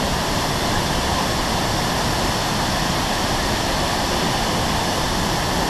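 Large waterfall crashing down: a loud, steady rush of falling water.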